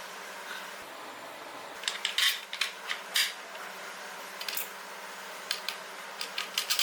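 Metal parts of an exercise bike's rear base being fitted together: bolts and hardware clinking and scraping in short, irregular clusters of clicks, starting about two seconds in and picking up again near the end.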